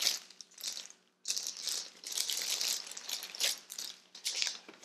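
Clear plastic bag crinkling as it is opened and the item inside is pulled out, in irregular crackling bursts with a short pause about a second in.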